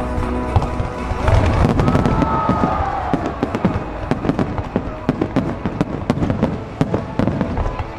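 Fireworks finale: aerial shells bursting in rapid succession, low booms over a dense run of sharp cracks and crackles, growing louder and busier about a second in.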